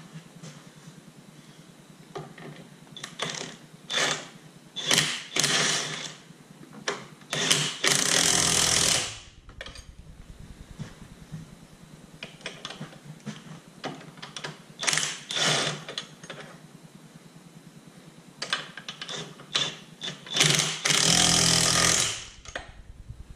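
Impact wrench tightening the lower control arm's mounting bolts and nuts: a string of short hammering blips, then two longer runs of about a second and a half, one near the middle and one near the end.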